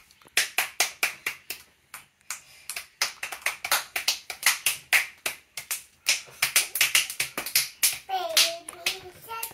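Children clapping their hands in quick runs of about five claps a second, with short pauses between runs. A child's voice comes in near the end.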